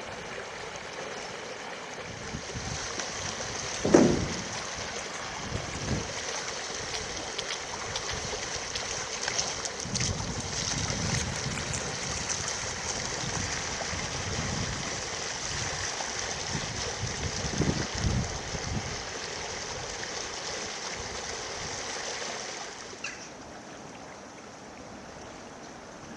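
Floodwater rushing steadily, with gusts of wind buffeting the microphone and one heavy buffet about four seconds in. The rush fades down about three seconds before the end.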